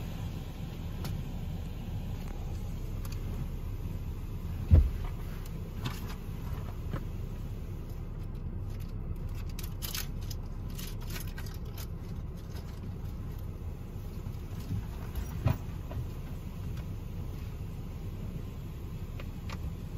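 Ryko Radius HT touchless car wash applying pre-soak foam, heard from inside the car: a steady low rumble. A sharp thump comes about five seconds in, and a smaller one about fifteen seconds in.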